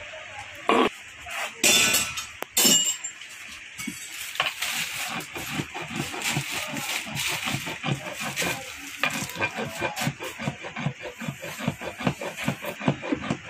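A flat steel file rasping across a car battery's lead terminal post and plastic lid, a few long loud strokes first, then quick short back-and-forth strokes.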